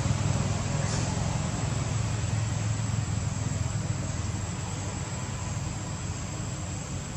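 Low, steady engine rumble of a motor vehicle, slowly fading.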